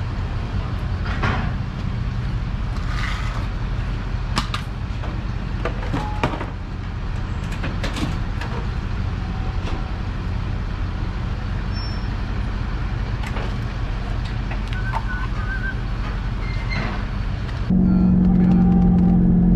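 A steady low engine rumble with scattered metal clanks and knocks. Near the end it gives way to the louder, steady low drone of a diesel pickup heard from inside its cabin while driving.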